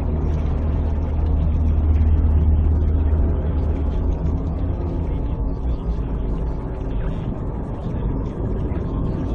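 A steady low rumbling drone, deep and engine-like, with a dense layered hum over it that eases slightly about halfway through.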